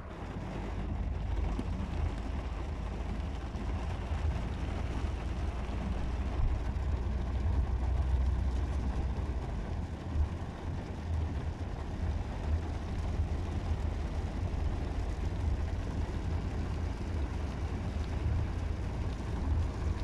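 Steady low rumble of a car driving, heard from inside the cabin: engine and road noise with no distinct events.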